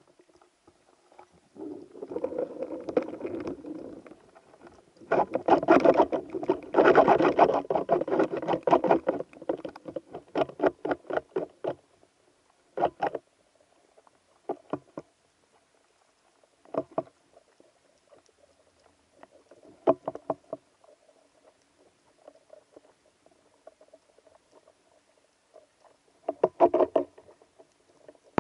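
Underwater rattling and knocking of a speargun rig with a speared dentex on its shaft line. The clatter comes in a dense run of rapid knocks for the first several seconds, then single knocks every few seconds, over a faint steady hum.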